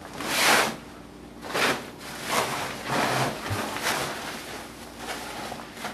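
Grill cover rustling in several swishes as it is pulled and lifted back, the loudest about half a second in.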